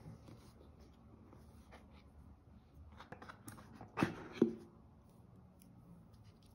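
Handling of a MacBook Air box's white paperboard insert: light taps and rustles, then two sharp knocks about four seconds in as the compartment flap is opened and the plastic power adapter is pulled out.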